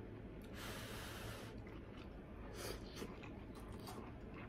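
A person eating breathes sharply through the nose: one noisy breath about a second long, then a shorter one a couple of seconds later.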